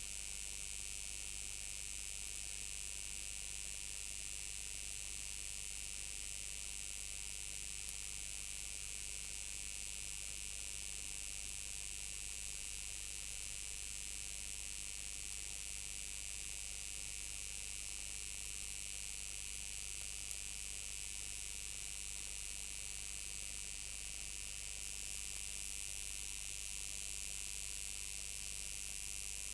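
Steady faint hiss over a low hum, with a couple of tiny clicks: the background noise of the recording.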